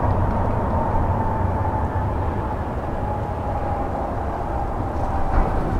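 Jet engines of a Boeing 737-500 airliner heard out of sight: a heavy, steady rumble with a thin engine whine that slowly falls in pitch, as of the aircraft moving away.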